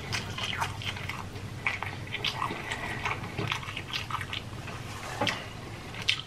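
Wet chewing and mouth sounds of someone eating king crab meat dipped in butter sauce: irregular moist clicks, smacks and squelches.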